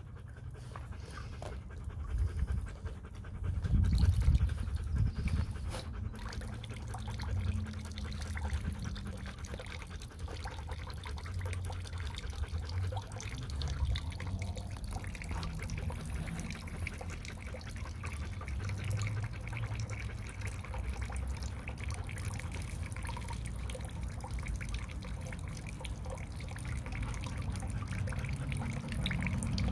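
Rottweiler puppies panting around their water bowl as water trickles into it, over an uneven low rumble on the microphone that swells briefly about four seconds in.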